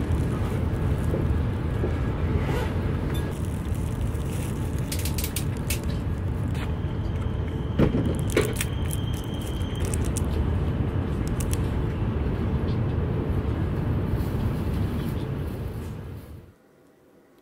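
Steady low rumble of a Tohoku Shinkansen train running, heard from inside the passenger cabin, with crinkling and clicks of a plastic wrapper and a milk carton being handled around the middle. The rumble cuts off suddenly near the end.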